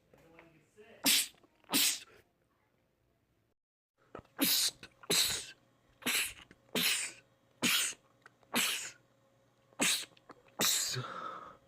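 Rapid fits of male sneezing: two sharp sneezes, then after a short dead silence a run of about eight sneezes coming nearly one a second, the last one drawn out.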